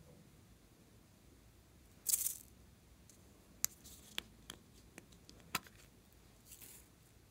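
A small plastic macaron-shaped container being handled and opened: a short scraping rustle about two seconds in, then a few sharp plastic clicks as the lid comes free.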